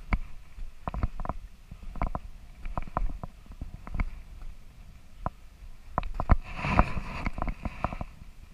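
Footsteps crunching in snow, uneven steps roughly one a second, with a longer scraping rustle about two-thirds of the way in.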